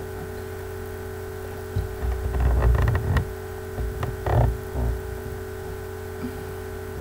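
Steady electrical hum on the recording. From about two seconds in to about five seconds in, a run of deep bumps and rubbing close to the microphone is heard as the computer is handled.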